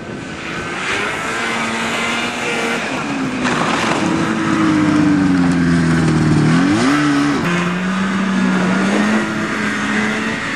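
A vehicle engine running under changing load. Its note holds steady, sags lower through the middle, jumps in a quick sharp rev about two-thirds of the way through, then settles and slowly climbs again.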